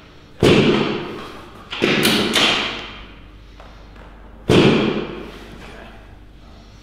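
Chiropractic drop table's drop section thudding down under the chiropractor's thrusts, three sudden thuds, each dying away over about a second.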